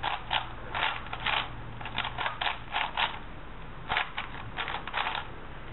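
A 4x4 puzzle cube turned by hand: quick runs of plastic clicks as its layers are twisted through a sequence of moves, in three bursts with short pauses between.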